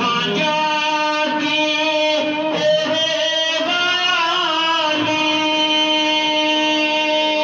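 A man's voice singing a devotional durood-salam chant in long held notes, each note stepping to a new pitch every second or so, with a wavering slide between notes near the middle.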